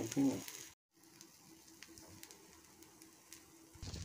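Dosa frying on a hot tawa, a faint sizzle with a few light clicks, broken by a brief dead gap under a second in; the sizzle comes back louder near the end.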